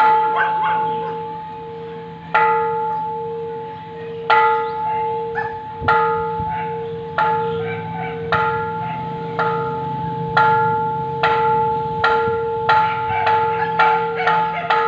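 Large temple bell struck again and again, each stroke ringing on with a slow pulsing hum. The strikes start about two seconds apart and come faster and faster until they are only a fraction of a second apart.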